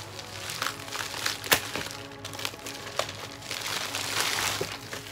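Plastic mailer bag crinkling and rustling as it is handled, with several sharp crackles, the loudest about a second and a half in. Background music plays underneath.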